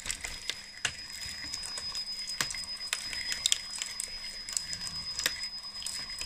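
3D-printed plastic track chain of an RC model dozer running free with the model lifted off the ground, its links clicking and rattling irregularly as they pass over the drive sprocket and idler wheel.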